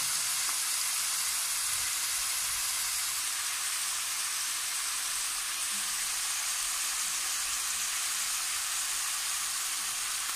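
Sliced onions frying in hot mustard oil in a kadhai, a steady sizzle with no let-up.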